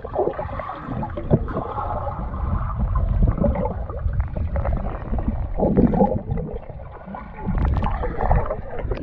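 Muffled pool water heard from underwater: a dull low rumble with gurgling and bubbling. About six seconds in it swells briefly, and near the end sharper sloshing comes in as the water surface breaks over the microphone.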